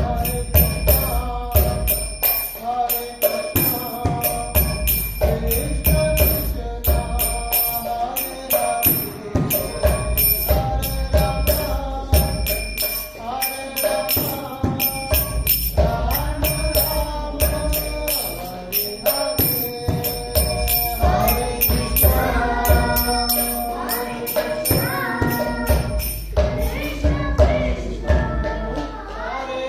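Music: voices singing a melody over jingling percussion and a steady low beat.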